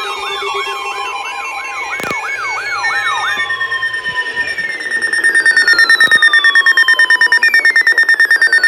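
Layered electronic siren and alarm tones of an emergency alert warning: a fast yelp sweeping up and down about twice a second with falling glides and steady tones. From about five seconds in, a rapid pulsing alarm beeps over a steady high tone.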